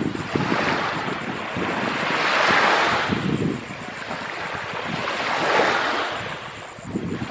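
Chesapeake Bay waves washing in, rising and falling in swells about every three seconds, with wind rumbling on the microphone.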